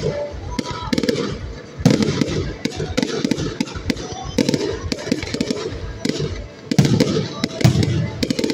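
Fireworks display: aerial shells bursting with rapid bangs and crackling, in irregular clusters, with heavy volleys about two seconds in and again near the end.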